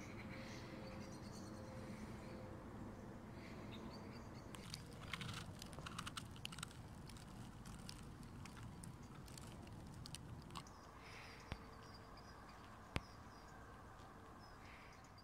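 Faint outdoor ambience with a low steady hum, a cluster of soft crackling clicks about five to seven seconds in, and one sharp click near the end.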